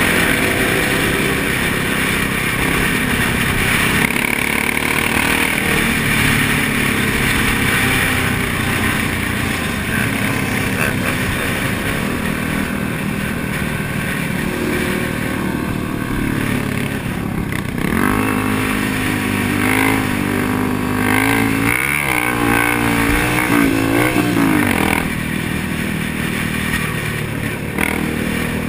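Motorcycle engines running at highway speed, with steady wind noise on a helmet-mounted camera. In the second half an engine note rises and falls several times as a bike revs and accelerates.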